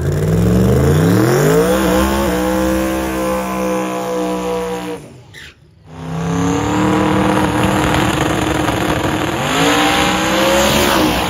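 Turbocharged drag-racing pickup doing a burnout on its rear slicks. The engine revs up over about two seconds and holds at high revs over the spinning tyres. After a short break about five seconds in, it holds high again and climbs once more near the end.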